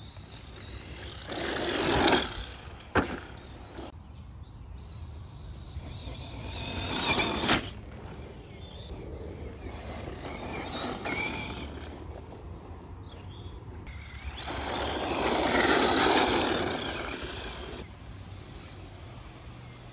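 HPI Jumpshot Flux brushless electric RC truck driving by on a dirt track four times, its tyres crunching over the loose surface and its sound swelling up and fading each time; the last pass is the loudest. A sharp knock comes about three seconds in.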